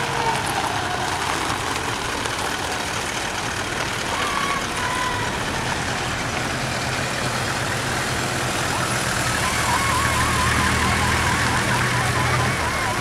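Toyota Land Cruisers in a slow convoy driving past on a dirt road, engines running with a steady low hum that grows stronger about halfway through. Near the end a high, quickly wavering trill rises above it.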